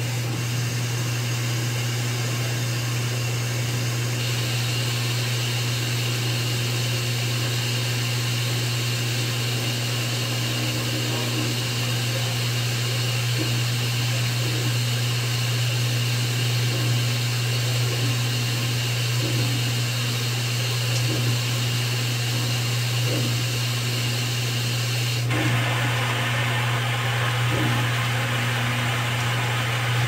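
Top-loading washing machine running, its wash plate churning clothes in water: a steady low motor hum under a constant hiss of splashing water, with a few faint knocks. The hiss eases a few seconds before the end.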